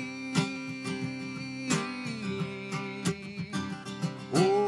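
Acoustic guitar strummed at a slow, steady pace in an instrumental gap between sung lines of a worship song. A man's singing voice comes back in near the end.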